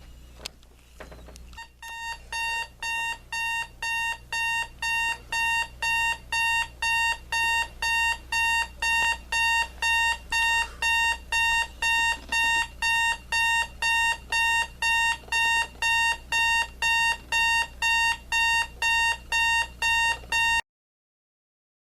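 Sonnet alarm clock radio's alarm beeping, about two even beeps a second at one pitch. The beeps grow louder over the first few seconds, hold steady, then cut off suddenly near the end.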